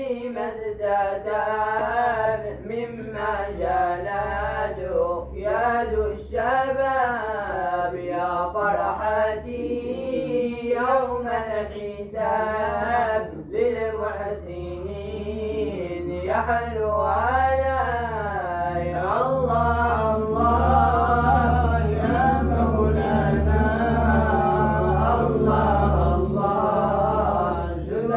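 Moroccan madih nabawi, a devotional praise song for the Prophet, sung unaccompanied as a chant. A lead voice carries a long winding melody over a low steady drone that comes in about four seconds in.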